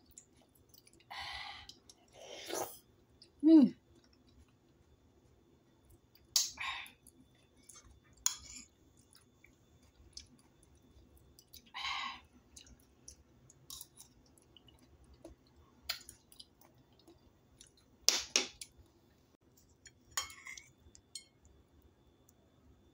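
Close-up eating of soft silken tofu: wet chewing and mouth sounds in short bursts, with sharp clicks scattered through, and a short hummed 'mm' about three and a half seconds in.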